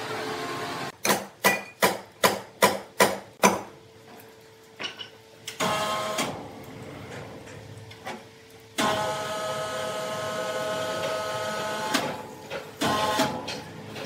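Sawmill machinery: a quick run of about seven sharp knocks, then quieter, then a machine running steadily with a hum from about nine seconds in.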